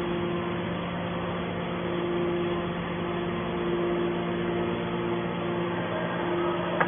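Horizontal hydraulic metal baler running, a steady mechanical hum, with a short sharp click near the end.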